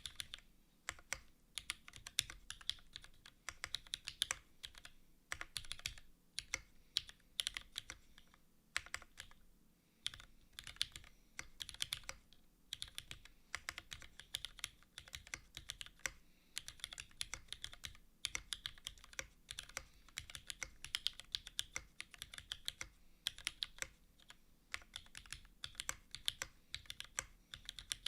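Continuous typing on a Keycult No.2/65 mechanical keyboard with Cherry HG Black linear switches, GMK keycaps and an aluminium plate in a gasket mount with no foam. The keystrokes come in quick irregular runs with brief pauses between them.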